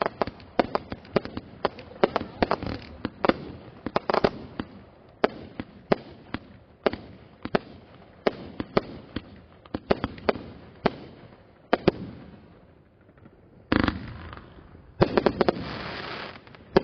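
Consumer aerial fireworks firing: a rapid string of sharp launch and burst bangs, about two a second, for roughly twelve seconds. After a short lull comes a brief loud rush of noise, then a denser stretch of noise with several bangs near the end.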